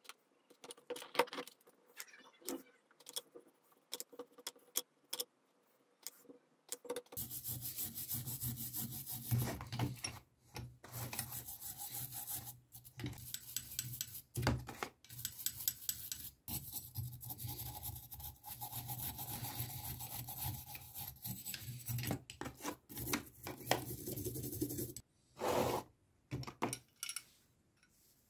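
A small wire brush scrubbing a corroded chrome faucet body in quick back-and-forth strokes, a steady rasping scrub that starts about a quarter of the way in and stops a few seconds before the end. Before it there are only light taps and dabs of a paintbrush on the metal, and near the end a couple of short scrubs.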